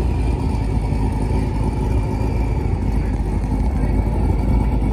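C7 Corvette's V8 exhaust rumbling loud and deep as the car drives off down the street.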